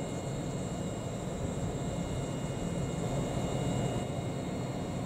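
Steady drone of stabled electric trains' equipment, with several faint, steady high-pitched whines over it.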